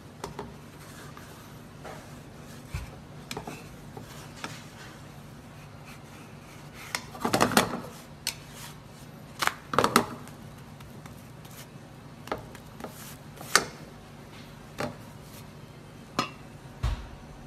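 Frying pan and kitchen utensils clattering on a gas stove: scattered clicks and knocks, a few louder clatters near the middle, over a steady low hum.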